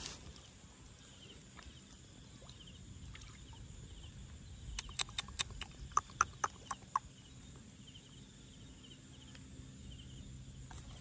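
Faint outdoor animal calls: short pulsed chirps that come back every second or two. A quick run of about ten sharp clicks comes about halfway through.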